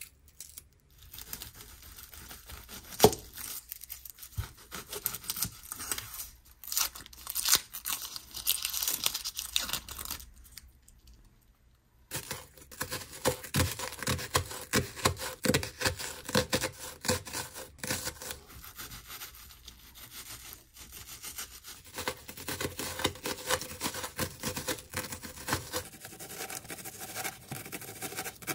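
The dry, papery skin of a red shallot being peeled off, crackling and tearing, then, after a short pause about eleven seconds in, a kitchen knife slicing and dicing the peeled shallot on a cutting board in quick repeated crisp cuts.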